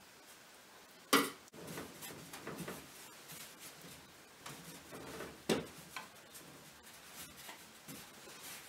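Quiet handling sounds of hands rolling up and pressing a mashed-potato-and-carrot roll on a floured worktop. Two sharp knocks stand out: the louder about a second in, the other about five and a half seconds in.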